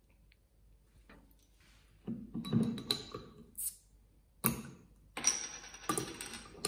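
Clinks and knocks of a hand handling glass beer bottles on a tabletop, starting about two seconds in, with a rushing noise about a second long near the end.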